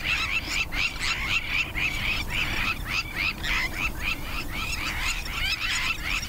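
Starlings and yellow-billed kites squawking, a dense, unbroken chatter of short, quick calls overlapping one another.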